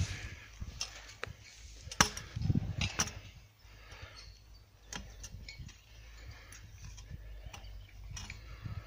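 Handling noises from tree-seedling planting work: scattered sharp clicks and knocks, with a few dull thumps about two to three seconds in, over a low steady rumble.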